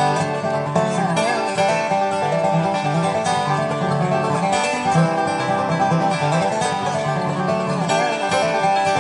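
Background bluegrass music, a lively tune with quickly picked banjo and guitar.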